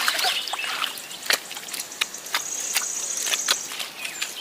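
Shallow water trickling and splashing, with wet mud slapping and squelching in short irregular splats as mud is packed by hand into a leak hole in an earthen fishpond dike; one sharp slap stands out about a second in. A high steady buzz runs for about two seconds in the middle.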